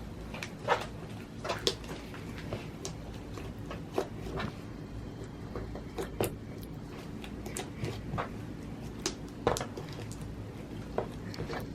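Glitter slime being mixed and kneaded by hand: irregular short squelches and clicks, about one or two a second, over a steady low hum.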